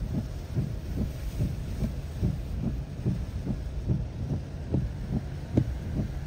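Hurricane wind buffeting the microphone as a low rumble, with a run of soft, regular thumps about three a second.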